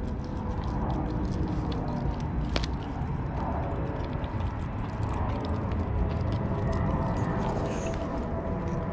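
Lycan Shepherd puppy chewing a whole raw fish, its teeth crunching through the bones in irregular sharp clicks over a steady low rumble.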